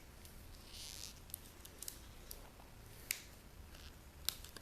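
Faint, scattered sharp clicks, the loudest about three seconds in, with a soft rustle about a second in: hands handling an electronic circuit board and its wiring.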